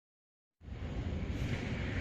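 Dead silence for about half a second, then typhoon-force wind comes in suddenly: a loud, steady rushing that buffets the microphone.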